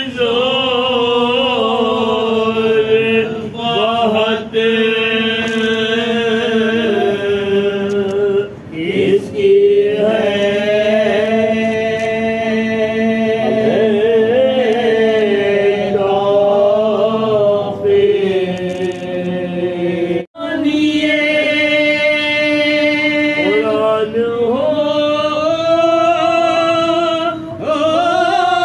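A group of men chanting a Muharram mourning lament in unison into a microphone, unaccompanied, in long held notes that slowly rise and fall. The chant breaks off for an instant about twenty seconds in, then resumes.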